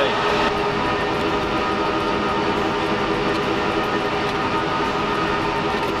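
Rack servers' cooling fans running hard: a steady, dense whir with several steady whine tones layered in it. The servers are hot and working under a heavy computing load.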